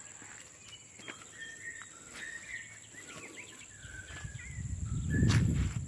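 Birds chirping in short scattered calls over a steady high insect drone. About four seconds in a low rustling rumble rises, with one sharp knock near the end, the loudest moment.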